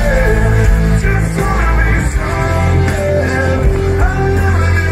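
Live rock band playing at full volume through a large outdoor PA, a singer carrying the melody over bass guitar, guitars and drums, heard from within the crowd.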